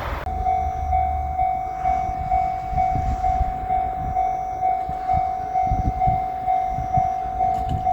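Japanese railroad crossing warning bell ringing its repeated electronic 'kan-kan' tone, about two strokes a second. A low rumble cuts off abruptly right at the start.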